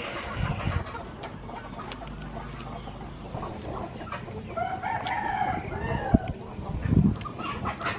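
A rooster crowing once, a pitched call about a second and a half long starting around the middle, with a few low thuds near the end.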